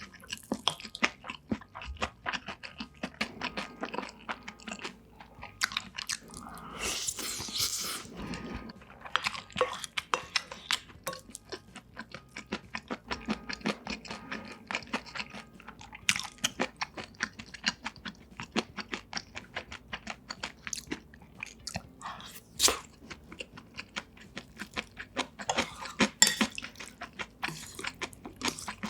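Close-miked eating: steady chewing with many small wet clicks and crunches, the sound of a mouthful of food being chewed. About seven seconds in there is a louder stretch of noise lasting a second or two.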